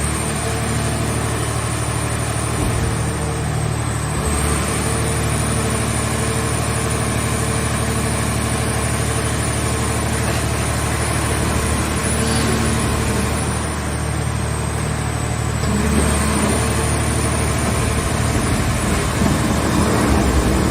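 Engine of a movable car-body baler running steadily, with a thin high whine that briefly dips in pitch twice; it grows a little louder about 16 seconds in.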